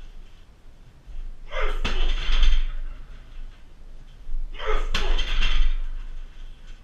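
Two shin kicks thudding into a 60 kg heavy bag, about three seconds apart, each with a sharp exhale from the kicker.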